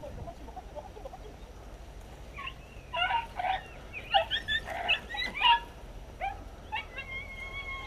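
Podenco hunting hounds yelping: a run of quick, high-pitched yelps from about two and a half seconds in to five and a half seconds, then one long held whine near the end.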